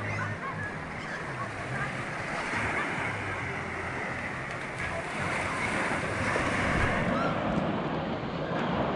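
Small waves washing onto a sandy beach, with wind buffeting the microphone and the scattered voices of people in the water and on the shore. A low hum runs underneath.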